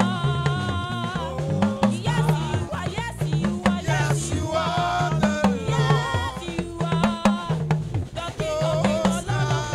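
A woman singing into a handheld microphone over music with a drum kit and bass.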